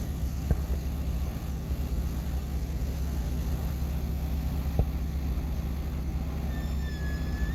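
Steady low rumble, with two faint sharp pops and a short high whistling tone near the end.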